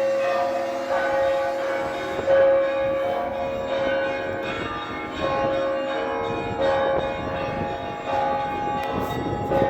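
Russian Orthodox church bells rung in a zvon: several bells of different pitches struck in a repeating pattern, a fresh strike about every second and a half, over a held ringing tone.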